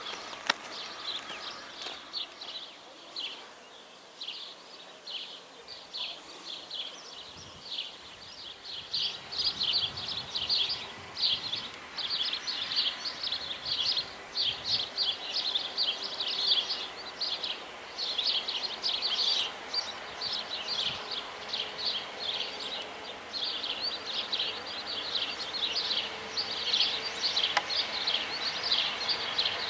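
Outdoor ambience filled with rapid, high chirping from small animals, growing denser about eight seconds in. Underneath is a faint hum from distant railway traffic.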